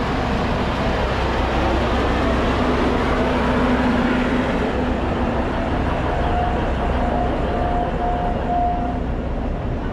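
Alishan Forest Railway train running, a steady loud rumble with a low hum, joined about six seconds in by a higher steady whine.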